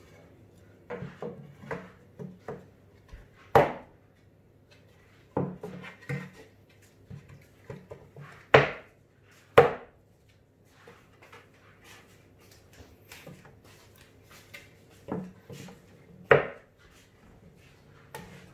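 Plywood panels of a subwoofer cabinet knocking and clattering as they are fitted by hand: irregular wooden knocks, four of them loudest, including a pair about a second apart near the middle. A faint steady hum runs underneath.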